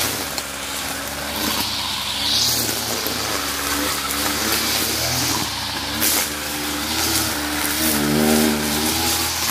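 Kawasaki TJ45 two-stroke brush cutter running under load while cutting overgrown grass, its engine speed rising and falling repeatedly.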